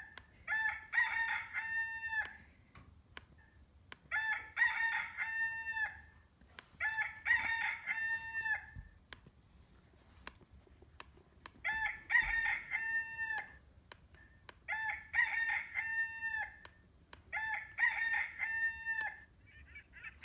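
Recorded rooster crowing played back through a laptop speaker. There are six cock-a-doodle-doo crows of about two seconds each, one roughly every three seconds, with a slightly longer pause between the third and fourth.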